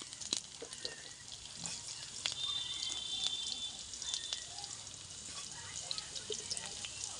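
Chopped green chillies and ginger sizzling in hot oil in a pan, with quick, irregular crackles and spits.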